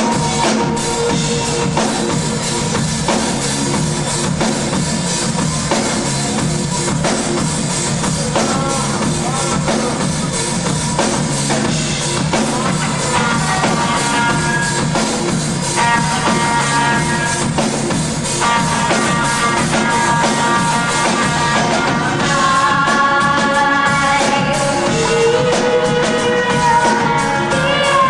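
A live rock band playing, recorded from the audience: drum kit, electric guitar and keyboards, with a woman singing over them.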